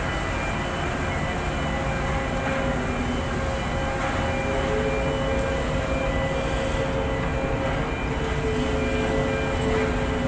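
Gottwald HMC 5506 mobile harbour crane running under load as it hoists a ship's hatch cover: a steady, heavy machinery drone with a low hum. A new hum tone joins about halfway through, and a repeating high pip runs alongside.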